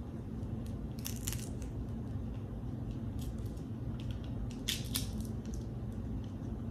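Snow crab shell cracking and crackling as it is broken apart by hand to get at the meat, in two short bursts about a second in and near five seconds in, with a few single clicks between, over a steady low background hum.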